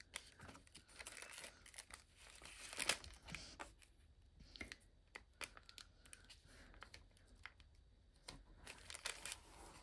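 Faint crinkling of small plastic bags with scattered light clicks and rattles as diamond painting drills are handled and sorted.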